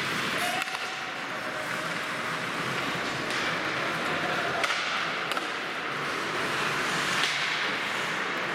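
Live ice hockey play in an indoor rink: a steady hiss of skates on the ice, with sharp clacks of sticks striking the puck and each other scattered through it, about five in all.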